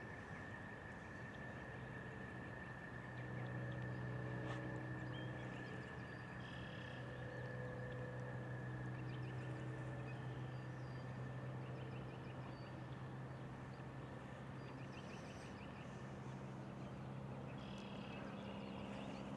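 Faint riverbank ambience: a steady low hum with scattered short chirps above it.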